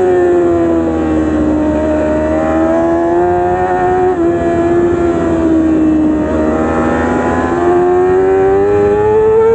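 Stock Yamaha R6's inline-four engine heard from on the bike: the revs fall over the first couple of seconds, hold lower through the middle, then climb steadily near the end as it accelerates hard.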